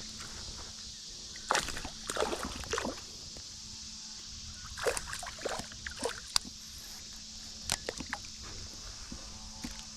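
Water sloshing and splashing in three short spells, over a steady high hiss.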